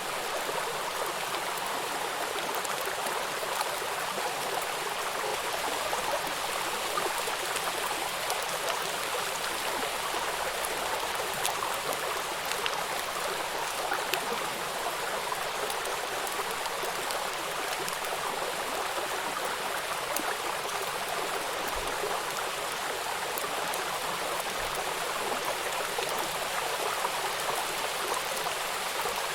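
Running water splashing steadily and evenly, with no change in level.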